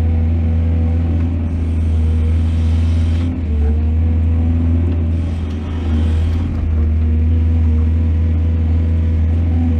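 Excavator's diesel engine running steadily with a deep hum. Two brief hissing rushes come over it, one about 1.5 seconds in and one about 5.5 seconds in.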